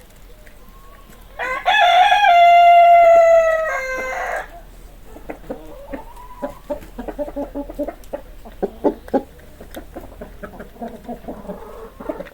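A rooster crows once, one loud call of about three seconds that drops in pitch at its end, followed by chickens clucking in short, irregular notes.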